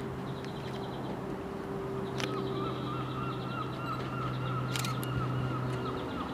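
Southern Class 377 Electrostar electric train approaching slowly over curved pointwork, with a steady low hum; from about two seconds in a wavering high-pitched squeal joins it, typical of wheel flanges on a tight curve.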